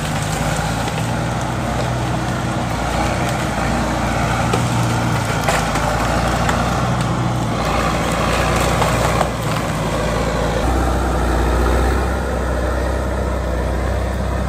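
Caterpillar 518 cable skidder's diesel engine running under load as the machine drives up dragging a hitch of logs, with a few sharp knocks along the way. The engine's low note grows louder about ten seconds in.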